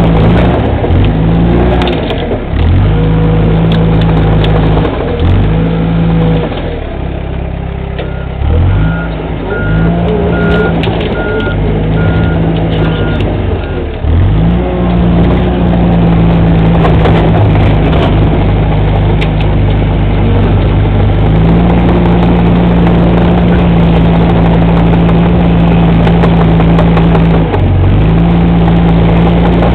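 Bulldozer's diesel engine working hard, its speed rising and falling as the machine is driven, with brief dips in revs. Its reverse alarm beeps steadily for about five seconds near the middle while it backs up.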